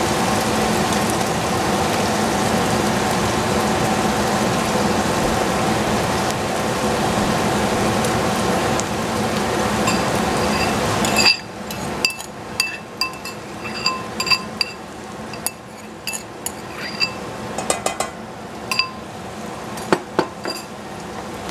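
Onions frying in a pan with a steady sizzle that cuts off suddenly about halfway through. After that come a string of light, ringing clinks, like utensils or crockery being tapped, about twenty of them spread irregularly over the remaining seconds.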